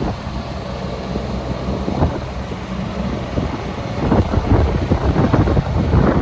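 JCB 16C-1 mini excavator's diesel engine running, with heavy wind buffeting on the microphone that gets louder from about four seconds in.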